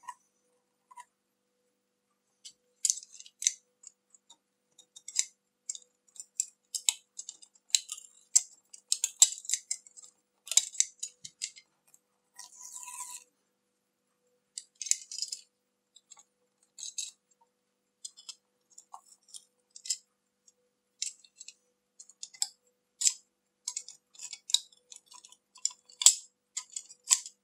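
Old adhesive tape being peeled and scraped off the plastic case of a Sony WM-F63 Sports Walkman with fingertips and a craft knife blade: irregular small crackles, scratches and clicks.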